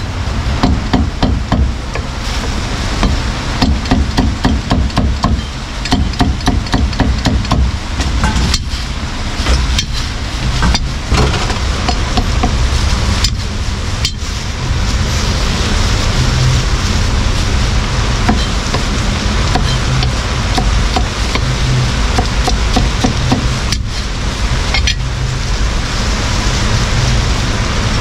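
A heavy cleaver chopping quickly on a thick round wooden chopping block, rapid knocks in runs with short pauses, over a steady low background noise.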